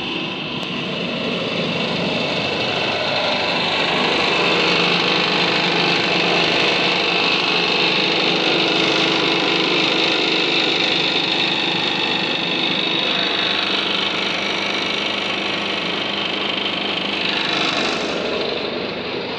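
An engine on a houseboat running with a steady drone, swelling louder for a while through the middle.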